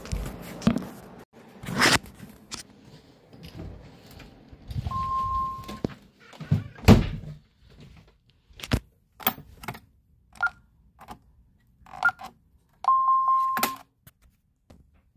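A door being handled with knocks and thumps, the loudest about seven seconds in. A Honeywell Vista-20P alarm keypad gives a one-second beep near five seconds, two short beeps around ten and twelve seconds, and a longer beep shortly before the end as the system arms in Instant mode.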